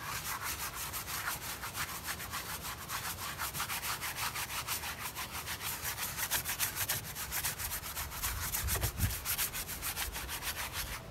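Bristles of a wide flat paintbrush scrubbing quickly back and forth over a painting's textured oil paint while laying on varnish, several strokes a second. A brief low rumble comes about nine seconds in.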